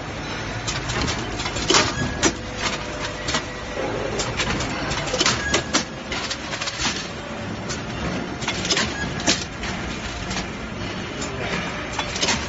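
Tablet/capsule blister packing machine running: many sharp clicks and knocks from its stations and dies at an uneven pace over a steady machine noise.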